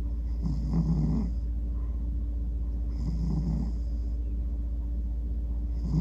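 A sleeping tabby cat snoring: two snores about two and a half seconds apart, a third beginning at the very end, over a steady low hum.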